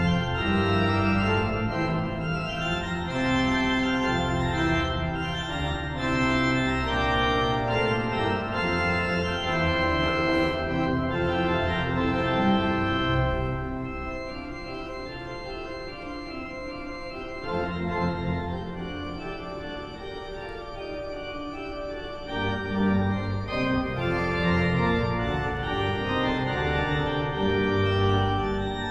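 Henry Willis cathedral pipe organ playing a fast classical piece in dense chords over deep pedal bass. About halfway through the bass drops out and the music turns quieter for several seconds, then the full sound returns.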